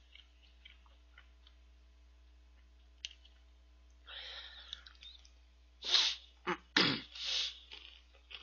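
Eating a chocolate cereal snack in milk with a spoon from a plastic cup: a few faint spoon clicks against the cup, then a short hiss about four seconds in and several short, loud slurps and sniffs about six to seven and a half seconds in.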